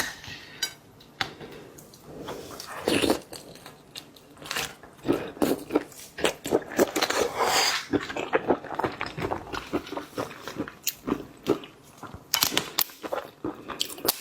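Close-up chewing and biting of shrimp, with crunches and many sharp, irregular clicks.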